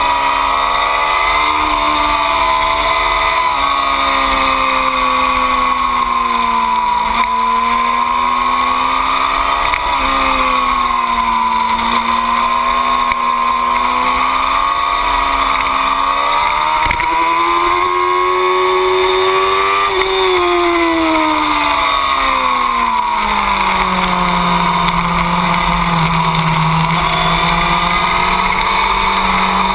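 2008 Yamaha R6's 600 cc inline-four engine running hard on track, its pitch rising and falling with throttle and gear changes. Past the middle it makes one long climb, then falls away over a few seconds and holds lower near the end.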